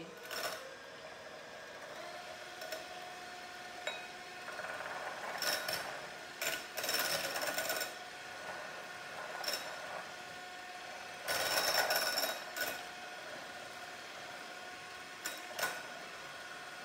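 A small handheld electric mixer runs with a steady whine, blending beaten eggs with wine and rum cream. It starts about two seconds in, and there are two louder stretches of churning and rattling, the first a few seconds in and the second past the middle. It stops near the end.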